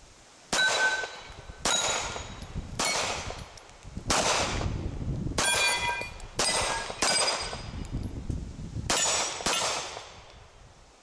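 Steel shooting targets clanging and ringing as bullets strike them: about nine hits at irregular intervals, each ring fading within about a second.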